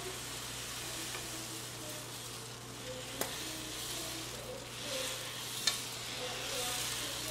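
Semolina baghrir batter sizzling on a hot flat griddle as it is poured and spread into a circle with the back of a ladle, with two sharp ticks of the ladle on the griddle, about three and five and a half seconds in.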